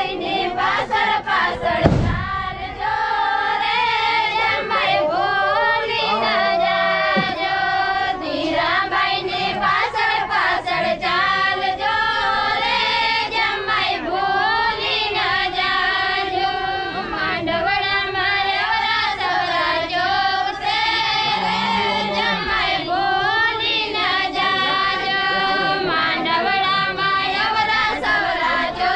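A group of women and girls singing a traditional Ahir wedding song together in unison, continuously. A single brief thump sounds about two seconds in.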